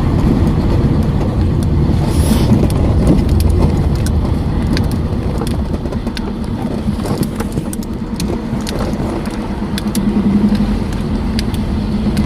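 Car driving down a steep hill road: a steady low rumble with scattered short knocks and rattles.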